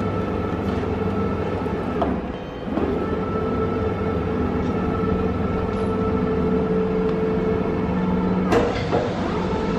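Industrial machine running with a steady hum made of several held tones. The hum dips briefly a little after two seconds in, and a few sharp knocks come near the end.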